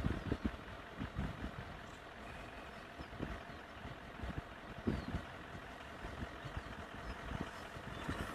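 Car engine idling steadily, heard from inside the vehicle, with irregular low thumps.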